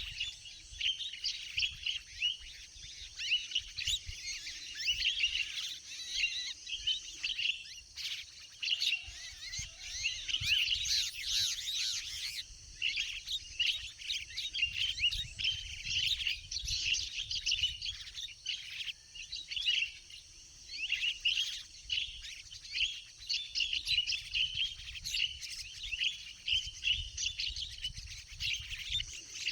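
Many birds chirping and chattering densely and without a break, with a low rumble underneath.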